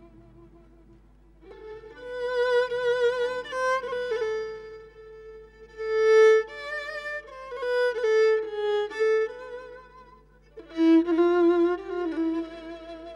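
Solo violin playing a slow melody with vibrato in three phrases, starting about a second and a half in, with short pauses between the phrases.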